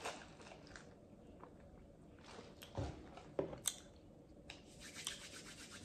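Faint mouth sounds of sipping soda through a straw and swallowing: scattered soft wet clicks, with a few slightly louder gulps about three seconds in.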